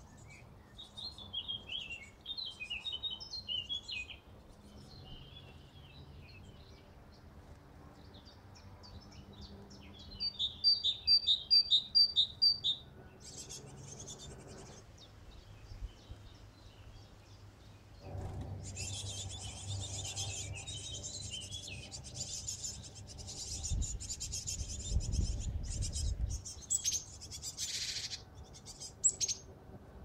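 Tits calling and singing around a nest box: brief high twittering, then a loud run of about seven quick repeated notes about ten seconds in, and dense high chattering through much of the second half.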